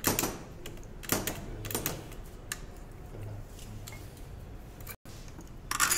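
Sharp metallic clicks and knocks from the steel parts of an 11 kV circuit breaker's spring operating mechanism being worked by hand: three single clicks in the first two seconds, then a quick run of clicks near the end.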